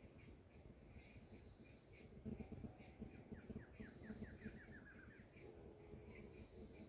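Faint forest ambience: a steady high-pitched insect trill, and about three seconds in a bird sings a quick run of notes that fall steadily in pitch.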